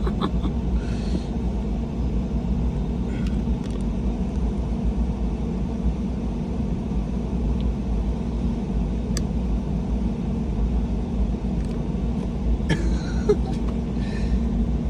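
Steady low rumble of a car heard from inside the cabin, the engine and road noise running evenly.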